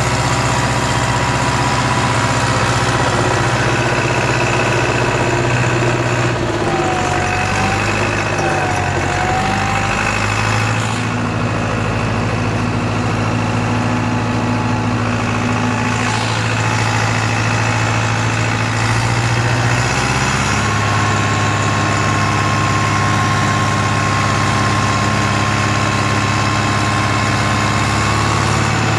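John Deere tractor engine running steadily under load while towing another tractor, its note shifting pitch three times, with a thin steady whine above the engine sound.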